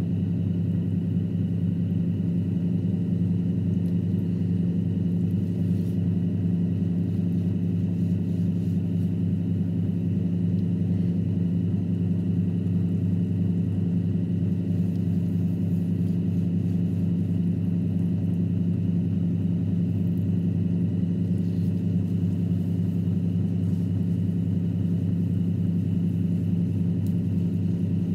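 Electric potter's wheel motor running at a steady speed: a constant low hum that does not change.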